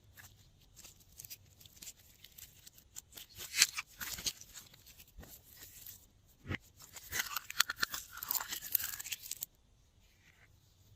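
Glossy slime being squeezed and kneaded by hand, with a run of wet clicks and pops from trapped air. The crackling grows dense for the last few seconds, then stops suddenly.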